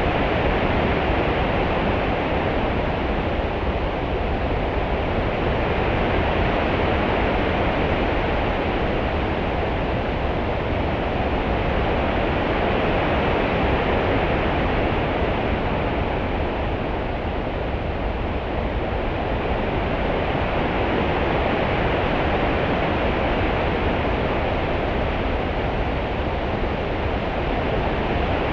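Continuous open-sea water sound: a steady hiss of rippling water that swells and eases slowly every several seconds, with no breaking waves.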